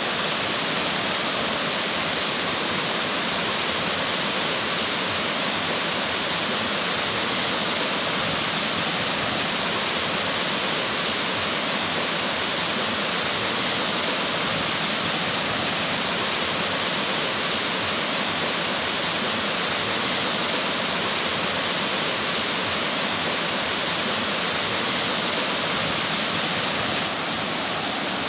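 Rushing mountain creek tumbling over rocks: a steady, loud rush of water, a little quieter near the end.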